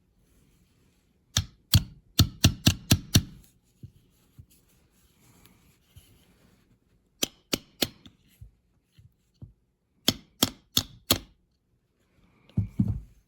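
Hammer strikes driving a pin out of an old Craftsman hand drill, in three runs of quick sharp taps: about seven, then three, then four. Duller knocks follow near the end.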